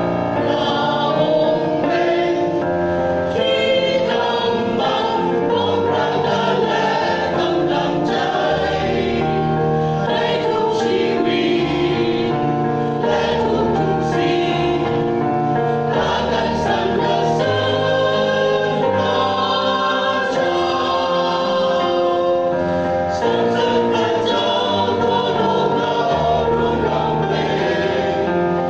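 Mixed choir of men's and women's voices singing a hymn in parts, continuously.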